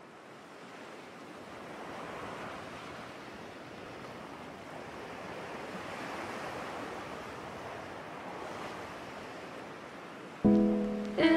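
Small waves washing onto a sandy beach, a steady rushing fading in from silence. Near the end, much louder music starts suddenly.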